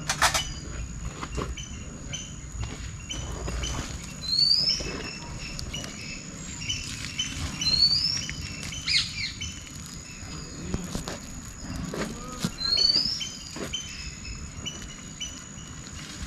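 Birds calling in the open: a short rising whistle repeats every few seconds among shorter chirps, over a steady high-pitched insect drone. There is a sharp click near the start and a few faint knocks from handling.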